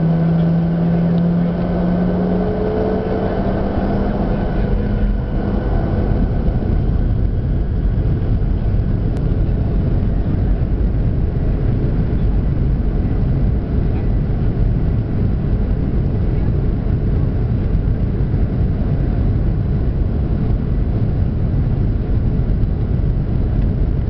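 Boeing 737-800's CFM56-7B jet engines spooling up for takeoff, heard from inside the cabin. A rising hum in the first few seconds gives way to a steady, loud, deep rumble of the engines at takeoff power and the takeoff roll.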